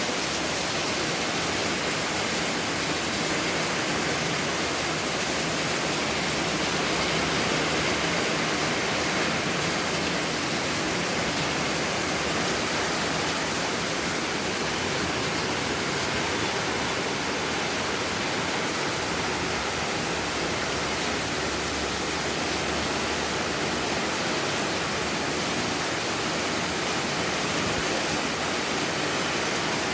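Heavy tropical downpour falling steadily: a dense, even hiss of rain with no letup.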